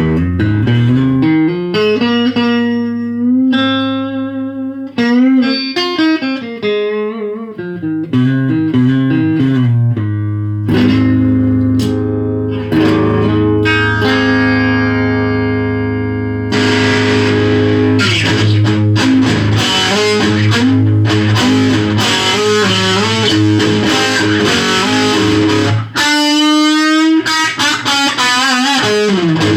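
Firebird electric guitar being played: single notes and chords with slides and bends on a clean tone, switching about halfway through to a thicker, distorted sound.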